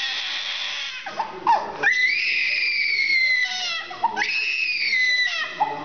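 A baby crying in distress. A harsh scream comes first, then two long, high-pitched wails, each held for about a second and sliding slightly down in pitch.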